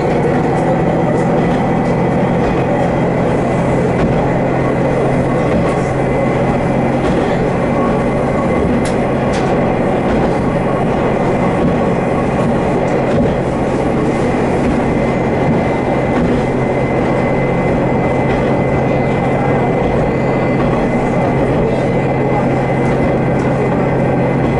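Haimo 330 diesel railcar running along the line: a steady engine drone under the rumble of wheels on rail, with a few faint ticks.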